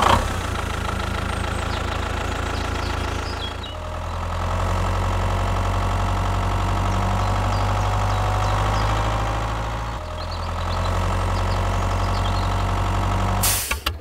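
An engine idling steadily, with two brief dips in level, that stops abruptly near the end.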